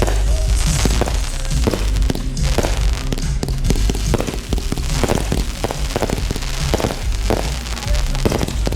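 Fireworks going off: many sharp bangs and cracks in quick, irregular succession over a steady low rumble, with music playing alongside.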